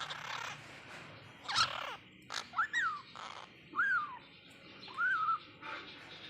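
Parakeets calling: harsh, raspy squawks mixed with three clear whistled notes that rise and fall, spaced about a second apart in the middle stretch.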